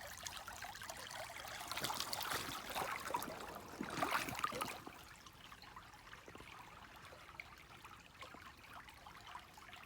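Shallow creek water splashing and trickling, busier and louder for the first five seconds or so, then settling to a faint steady trickle.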